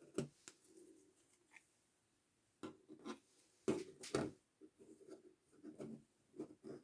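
Small plastic packets of diamond-painting drills being handled, with faint, scattered rustles and light clicks in irregular clusters.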